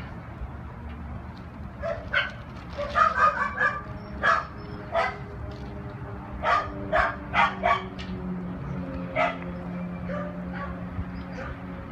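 A dog barking in short, sharp barks: a quick cluster about two to three seconds in, single barks near four and five seconds, a run of four quick barks about six and a half seconds in, and one more near nine seconds, over a steady low hum.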